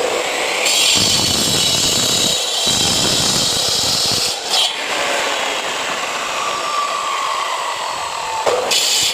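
Power cutter with a masonry blade cutting concrete paving blocks: the motor runs steadily with a whine, and a harsh, high grinding comes in whenever the blade bites into the block, from about a second in to past the middle and again briefly near the end.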